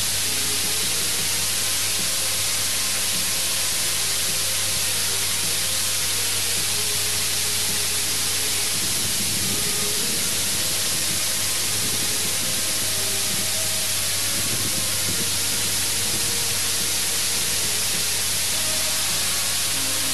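Water spraying from the sprinkler nozzles of a natural-draft cooling tower and falling through the layers of laths, a steady, even hiss.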